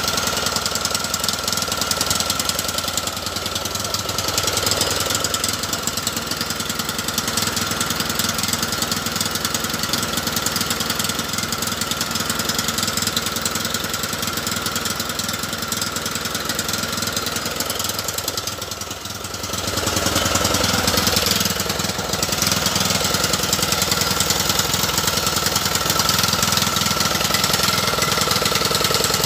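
Lawn mower's small engine running steadily with a rapid pulsing beat; it dips briefly about nineteen seconds in, then picks back up a little louder.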